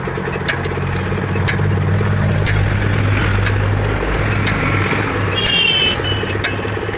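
Truck engine idling with a steady low hum, with light clicks about once a second.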